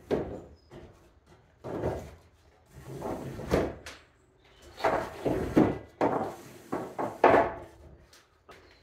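Timber space joist scraping and bumping against wood as it is fed in at an angle and threaded through, in a series of irregular sliding rubs.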